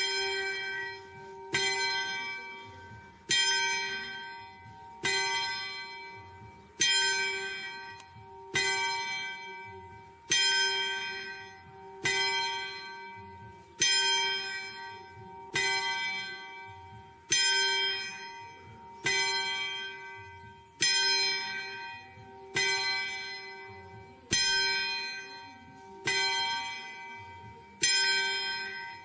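A single church bell tolling at an even pace, struck about once every second and three quarters, each stroke ringing out on the same note and fading before the next.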